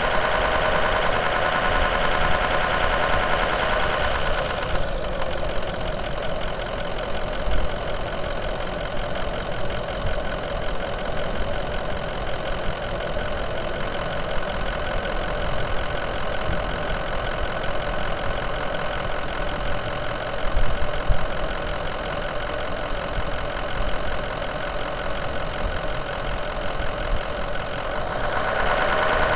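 Diesel truck engine running steadily. Its higher-pitched whine drops away about five seconds in and comes back near the end.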